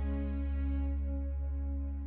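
Ambient background music: sustained, droning tones held over a deep low hum, the highest tones fading out about a second in.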